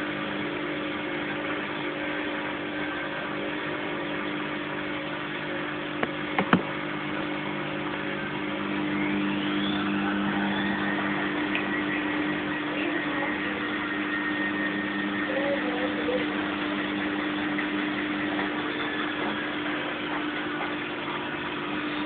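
Fagor front-loading washing machine running, its motor humming steadily. Two sharp clicks come about six seconds in; a few seconds later a short whine rises in pitch and the running sound gets slightly louder.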